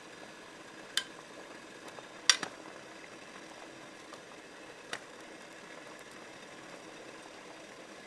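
Kitchen cooking sounds: a few sharp clicks of utensils against cookware, one about a second in, two close together just after two seconds, and one near five seconds, over a faint steady hiss.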